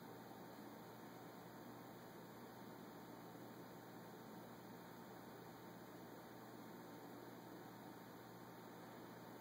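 Near silence: room tone with a faint steady hiss and hum.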